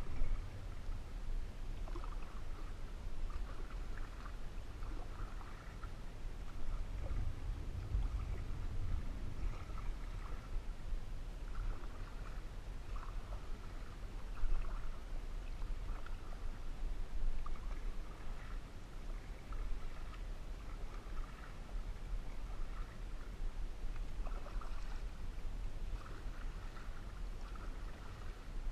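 Canoe paddle strokes: splashing and dripping in lake water, repeating every second or so over a steady low rumble.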